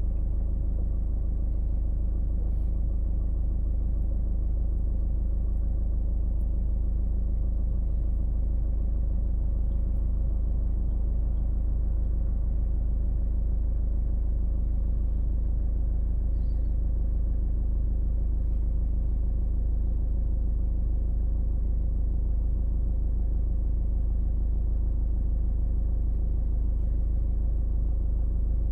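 A car driving steadily, giving a continuous low rumble of engine and road noise with no change in pace.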